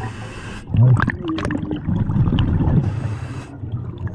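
Scuba diver breathing underwater through a regulator: a hissing inhale at the start and again about three seconds in, with a long spell of gurgling exhaust bubbles between them.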